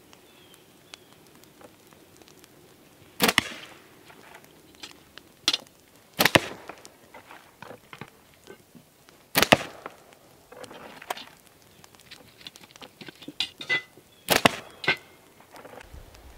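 Slingshot shooting practice: four loud, sharp cracks a few seconds apart as shots are loosed and strike the mesh target box, with fainter clicks and taps between.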